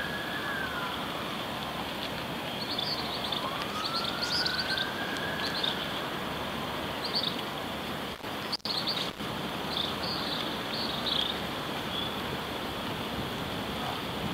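A siren wailing in slow rises and falls, with one full swell in the first half and nothing after. Short high bird chirps come several times over a steady background hiss.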